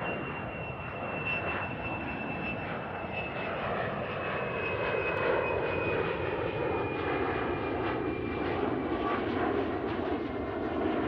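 Airplane engine noise: a steady rushing drone, growing slightly louder, with a faint high whine that slowly falls in pitch.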